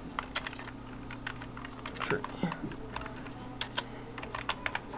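Typing on a computer keyboard: a run of irregular key clicks, about four or five a second, over a steady low hum.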